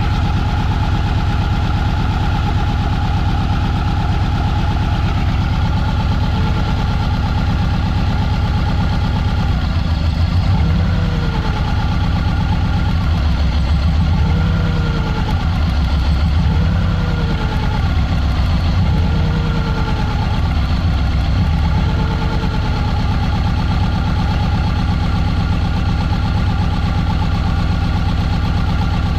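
Subaru EJ20 flat-four engine idling, with several brief rises and falls in its note through the middle, while a misfire is tracked down by checking the ignition coils.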